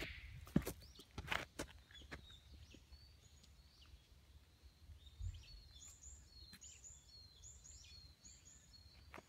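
A few footsteps on a dirt trail in the first couple of seconds, then a small bird calling in a run of short, high chirps, about two a second, through the second half.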